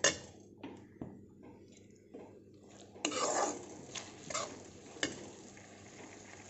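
Metal spatula knocking and scraping against a metal kadhai while stirring cooking vegetables and masala: several sharp clinks, a louder scrape about three seconds in, then a few more clinks.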